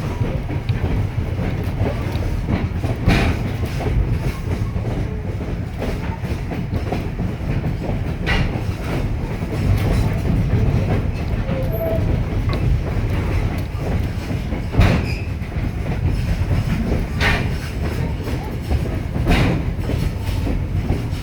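Railroad passenger coach rolling along jointed track, heard from aboard: a steady low rumble of wheels and running gear, broken every few seconds by sharp clacks of the wheels over rail joints.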